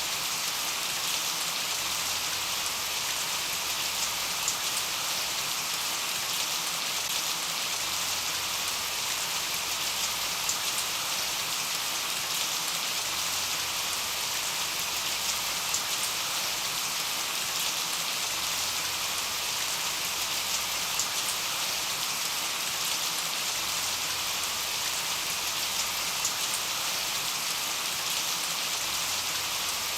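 Steady rain: a constant hiss of rainfall with scattered sharper drop ticks.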